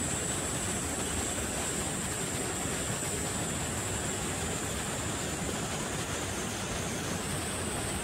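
Steady outdoor forest ambience: an even rushing noise with a high, unbroken insect buzz on top, typical of summer cicadas.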